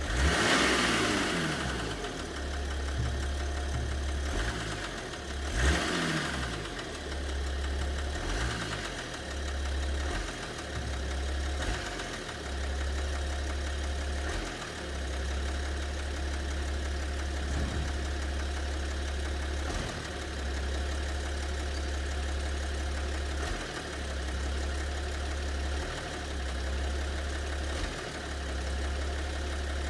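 BMW 730d's M57 three-litre straight-six diesel idling with an unexplained knock, revved briefly twice, at the start and about six seconds in. The owner cannot identify the knock and is asking what it could be.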